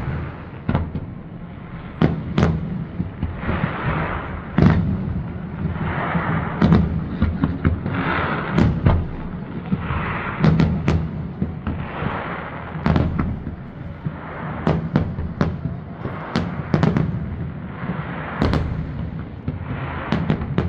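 Fireworks display: aerial shells bursting in a quick, irregular run of sharp bangs, dozens of them, with rushes of crackle between the bangs.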